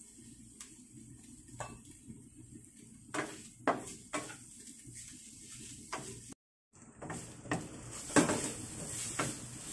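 Wooden spatula scraping and stirring seasoned grated coconut in a nonstick frying pan, with a light sizzle, as the coconut is cooked until fairly dry. The strokes are spaced out at first, the sound cuts out for a moment about two-thirds through, then the stirring and sizzle become busier.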